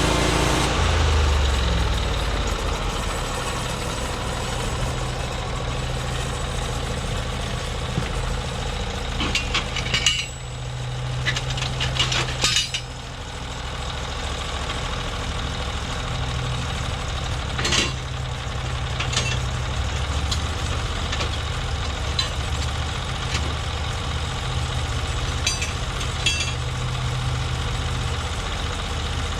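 Small gas engine of a Norwood MX34 portable bandsaw mill. It settles from a higher speed to a steady idle in the first couple of seconds, with a cluster of metallic clinks and rattles about a third of the way in and a few single clinks later.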